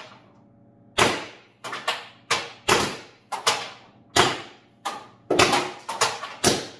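First Strike FSC .68-calibre CO2 launcher firing a rapid string of shots, each a sharp crack with a short ring of echo, coming faster near the end. It is cycling through the magazine without jamming.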